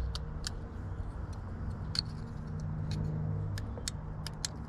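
Light clicks and taps of a plastic power-window switch and its trim being handled, a dozen or so irregular ticks, over a steady low hum.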